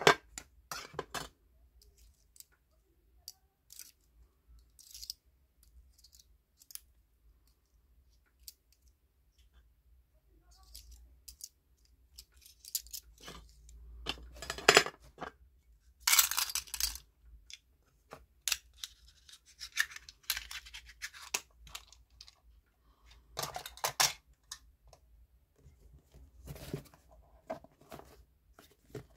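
Cardboard packaging and small items handled by hand: scattered light clicks and taps with short bursts of rustling and scraping, a few of them louder.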